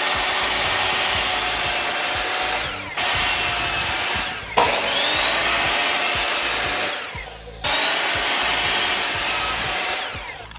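Ryobi sliding compound miter saw cutting one-inch cedar planks to length. Its motor runs with a steady high whine in several runs, spinning up and then winding down between cuts.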